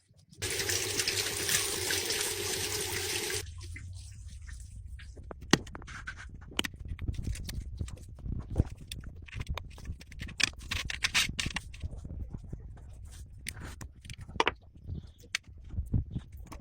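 A loud rushing noise lasts about three seconds near the start. It gives way to irregular small clicks and taps of tools and parts being handled on an old mechanical wristwatch, over a steady low hum.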